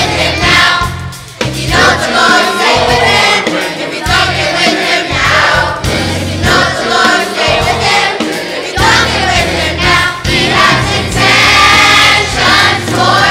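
Student choir singing a gospel song over an accompaniment with a steady beat.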